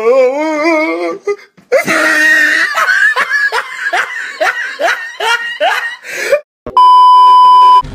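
Loud, exaggerated laughter: a wavering cry at the start, then a rhythmic run of "ha-ha-ha" strokes, about three a second, each falling in pitch. Near the end, after a brief silence, a steady beep tone about a second long cuts in.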